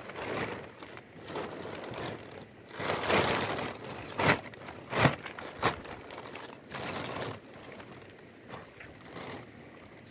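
Crinkling and rustling of something being handled, coming in uneven swells, with two sharp knocks about four and five seconds in.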